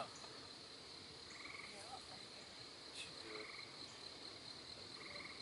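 Faint summer-evening chorus in a grassy field: a steady high-pitched insect trill, with short pulsing calls coming in a few times.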